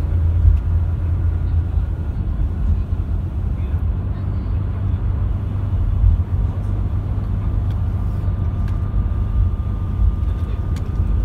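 Steady low rumble of engine and road noise inside a coach's cabin while it travels along a motorway, with a faint steady whine in the background.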